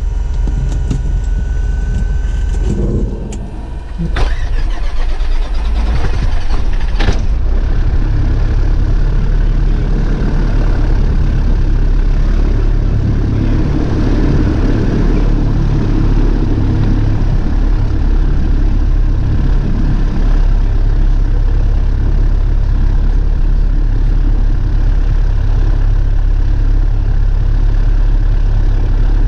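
Piper Warrior PA-28-161's Lycoming O-320 four-cylinder engine on a primed cold start: the starter cranks it and it catches about four seconds in. It then runs at a steady idle, heard from inside the cockpit.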